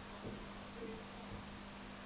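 Quiet room tone: a steady hiss with a faint low hum.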